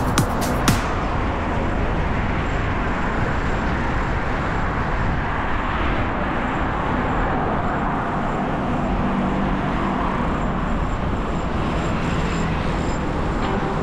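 Steady road and traffic noise heard while riding beside a coastal road, an even rush with no distinct events. A dance-music track with sharp beats cuts out about a second in.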